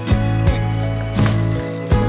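Background music with a steady bass line and sharp percussive hits.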